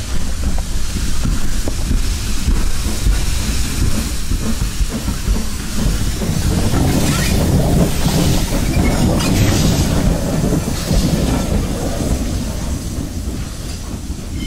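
Heritage-railway steam train running: heavy low rumble of wheels on the track, with several bursts of steam hiss in the middle, fading away toward the end.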